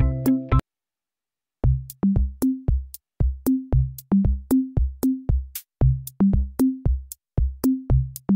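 Background music: a synth melody stops shortly after the start, then about a second of silence, then a steady electronic drum-machine beat of kick drums and sharp clicks.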